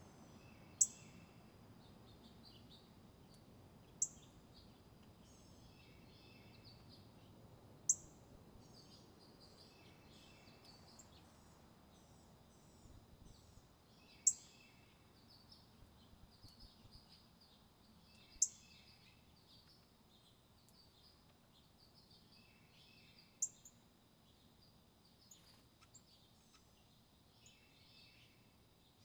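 Small birds calling: six sharp, high chip notes a few seconds apart, with softer, quicker twittering calls between them.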